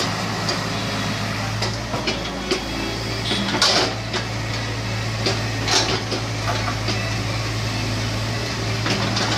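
Excavator's diesel engine running steadily with a low hum, with a few sharp knocks and clatters from the machine about four and six seconds in.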